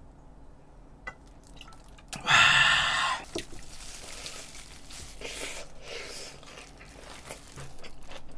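Swallowing beer from a glass bottle, with a loud breathy burst about two seconds in. Then come crunching bites into crispy fried chicken crust and wet chewing, with small crackles throughout.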